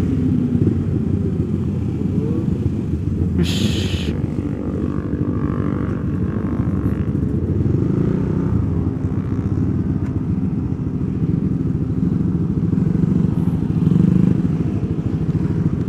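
Motorcycle engine running steadily at low revs as the bike rolls slowly and idles at the roadside. There is a short hiss about three and a half seconds in.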